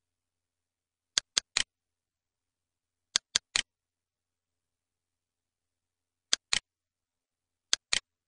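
Computer mouse clicks in quick groups: three clicks about a second in, three more about two seconds later, then two pairs near the end, with dead silence between.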